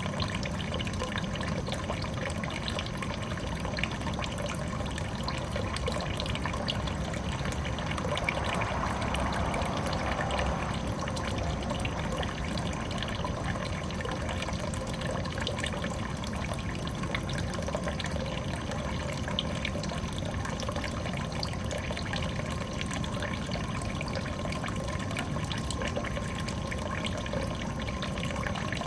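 Water falling and trickling steadily in a small garden biotope pond, a continuous splashing with fine droplet patter.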